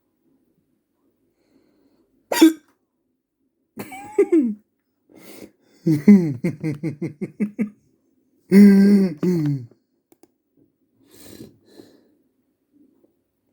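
A person hiccuping, hiccups brought on by laughing. A sharp hiccup comes about two seconds in, then voiced gasps, a quick run of short laugh-like pulses and another voiced burst through the middle, with silence between.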